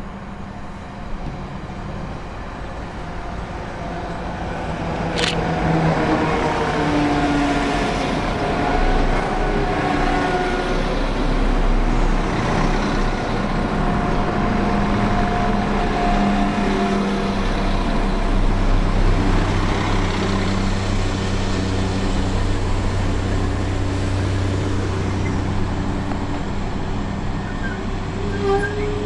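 Class 172 Turbostar diesel multiple unit running into the station and drawing to a stop. The wheels and underfloor diesel engines grow louder as it approaches, with thin wavering squeals as it slows. From a little past halfway the engines idle steadily at a standstill.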